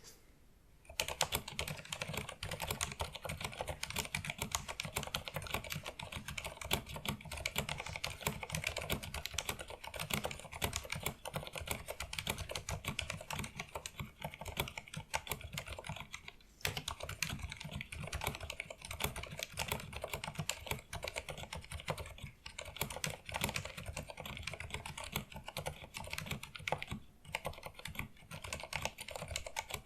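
Filco Majestouch 2 mechanical keyboard with Cherry MX Silent (Pink) linear switches being typed on fast and continuously, a dense stream of soft, damped key strokes. Typing starts about a second in and pauses briefly about halfway through.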